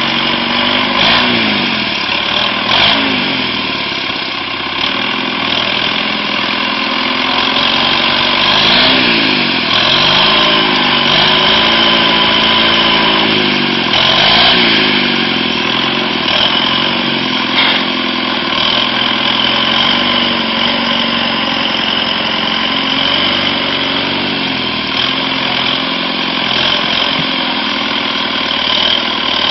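Nuffield 460 tractor engine running as the tractor drives through deep mud. Its revs rise and fall repeatedly in the first half, then it runs at a steadier speed.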